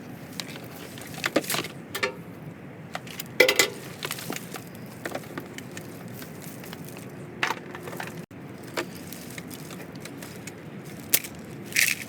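Scattered clicks and clacks of scrap wire and small metal pieces being handled and dropped, the loudest about three and a half seconds in and again near the end.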